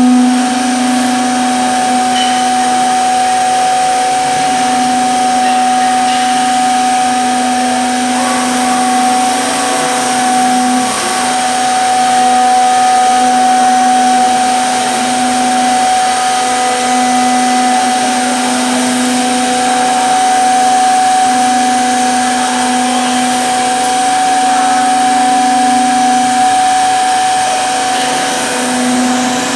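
Three-head CNC mortising machine at work, its router spindles giving a steady whine as the heads move over and cut into the clamped wooden parts. The level swells and eases a little as the heads move.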